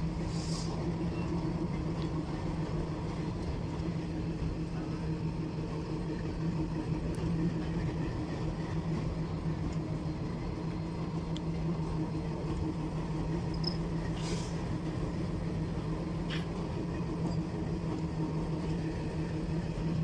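Passenger train of Indian Railways sleeper coaches running past: a steady rolling rumble of wheels on the rails with a steady low hum underneath.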